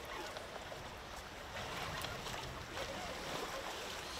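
Sea water lapping and slapping against a boat's hull, with wind on the microphone.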